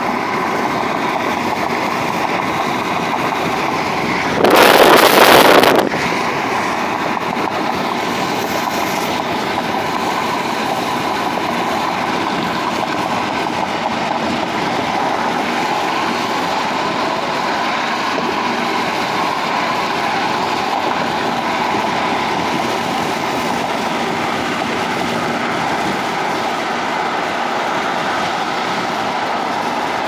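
Steady road and tyre noise of a car driving at freeway speed, heard from inside the cabin. About four and a half seconds in, a much louder rush of noise lasts just over a second.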